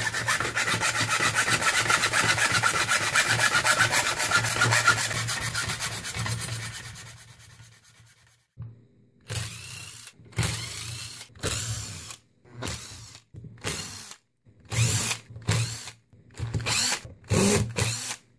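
A hacksaw rasps through a plastic motor housing for about seven seconds and fades out. Then a cordless drill-driver runs in about ten short bursts as it backs out screws.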